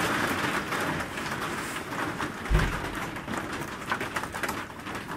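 Steady rain hiss, with a few small clicks from wire handling and one dull thump about halfway through.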